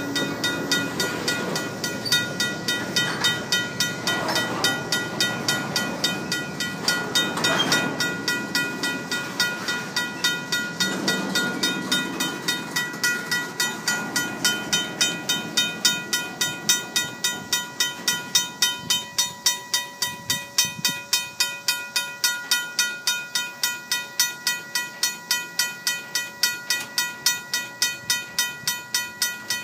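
A RACO mechanical crossing bell ringing steadily, about three or four strokes a second, while empty covered grain hopper cars roll past with a rumble and wheel noise. The rolling noise is strongest in the first half and lighter in the second.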